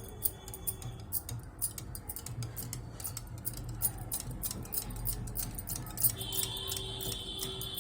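Spoon stirring gram flour and buttermilk batter in a bowl, with quick, irregular clicks of the spoon against the bowl's side.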